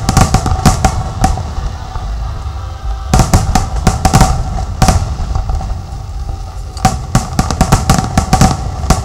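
Display fireworks going off in rapid volleys of sharp bangs, in several clusters a second or two apart, over a steady low rumble.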